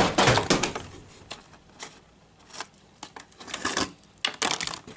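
Twist ties being untwisted and pulled out through a cardboard packaging insert, with the cardboard rustling and scraping. A burst of rustling at the start, then scattered light clicks, and more rustling about four seconds in.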